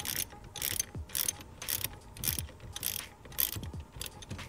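Hand socket ratchet clicking in repeated strokes, about two a second, as the steering-wheel retaining nut is worked loose.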